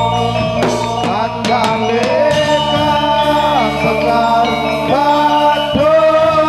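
Javanese song with gamelan accompaniment: a singer holds long notes that bend in pitch, over struck metal-keyed percussion.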